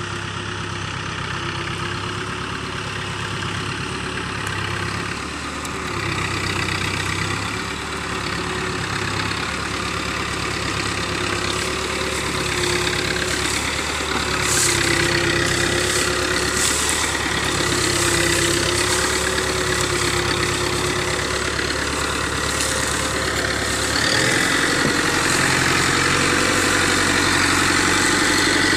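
New Holland Dabung 85 HP tractor's diesel engine running steadily as it pulls a trolley loaded with sugarcane, growing louder as the tractor comes closer. About 24 seconds in, the engine note changes and gets louder.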